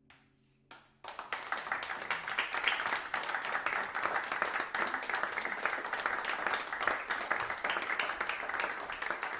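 The faint ringing tail of a percussion ensemble's final chord fades out, then about a second in an audience starts applauding, a steady dense clapping that goes on.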